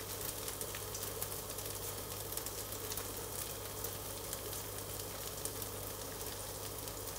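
Norwegian pancake batter sizzling in a frying pan on the stove: a steady sizzle with fine crackling pops, over a steady low hum.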